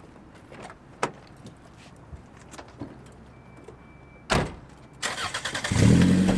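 A few light clicks as a man climbs into a car, then a car door slams shut with one loud knock a little past four seconds in. About a second later the engine cranks and catches, settling into a steady idle.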